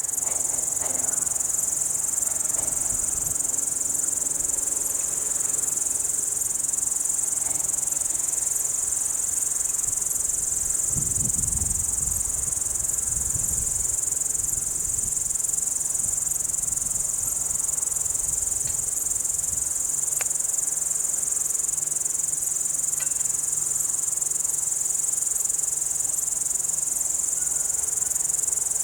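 Chorus of many crickets chirping: a steady, continuous high-pitched trill with no pauses.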